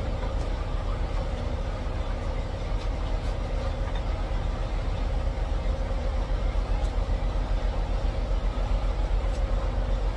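Diesel truck engine idling steadily: a low rumble with a faint steady whine above it.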